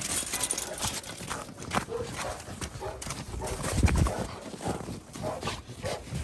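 Uneven crunching of footsteps and dog paws in packed snow, with a low thump about four seconds in.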